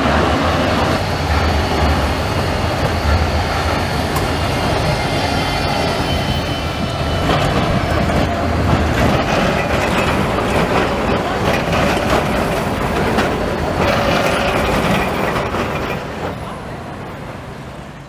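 Electric city trams passing close by, steel wheels rumbling and clicking over the street rails, with a faint high wheel squeal for a few seconds in the first half. The sound fades out near the end.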